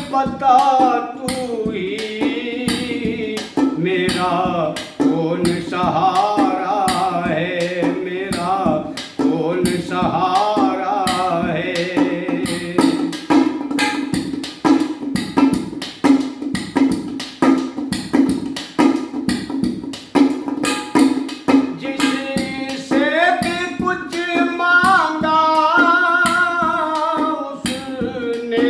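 Music: a wavering, ornamented melodic line with singing over a steady drum beat.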